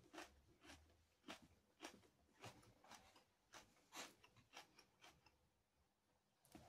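Faint chewing with wet mouth clicks, roughly two chews a second, thinning out near the end.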